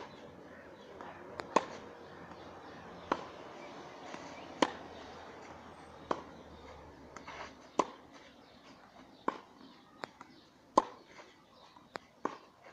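Tennis rally on a clay court: a ball struck back and forth by rackets, a sharp pop about every one and a half seconds, the strokes alternating louder and fainter, with lighter ball bounces between them.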